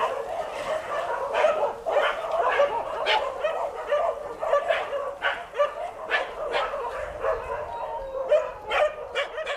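A group of dogs barking together, many short calls overlapping with no break, cutting off suddenly near the end.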